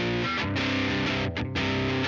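Music with electric guitar chords, broken by two short gaps in the second half.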